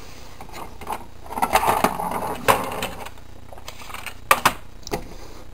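Plastic toy handling: a plastic toy truck pushed and lifted out of a plastic playset's gateway, with scraping and several sharp plastic clicks, most of them in the second half.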